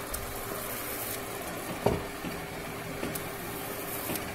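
Taro-stolon and jackfruit-seed curry sizzling and simmering in a frying pan as its liquid cooks down, over a faint steady hum, with a few small clicks and one louder knock about two seconds in.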